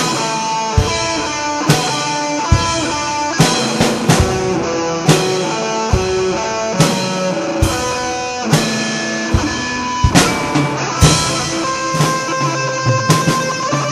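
Instrumental rock from electric guitar and a drum kit, with the drums hitting just over once a second under sustained guitar notes. Near the end a note glides upward.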